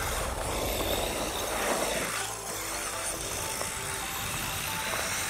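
Electric motor of a 1/8-scale 4WD brushless RC monster truck whining as it revs up and down, pushing the truck through deep snow. Background music plays along with it.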